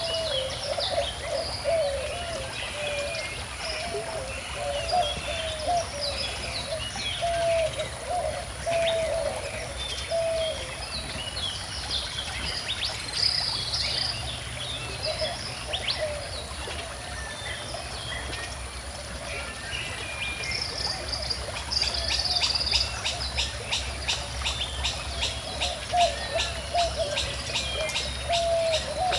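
Several songbirds singing and chirping over the steady rush of a gently flowing stream. A repeated lower call comes in short phrases through the first half and again near the end, and a rapid ticking trill joins about two-thirds of the way through.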